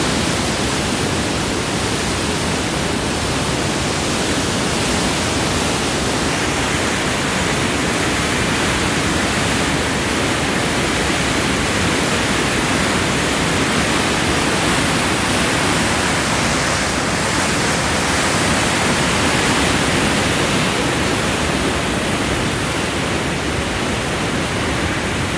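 Whitewater rapids and a waterfall rushing over rock ledges: a loud, steady rush of water that never lets up.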